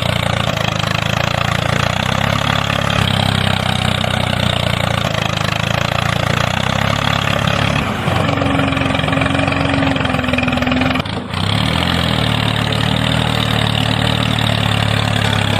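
A small engine running steadily, with a higher steady hum for about three seconds in the middle and a brief drop in level just after it.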